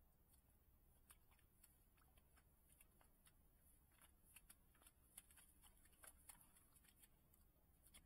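Faint, irregular clicking and rustling of deer feeding and stepping in the grass, a dozen or more small crackles in quick uneven succession.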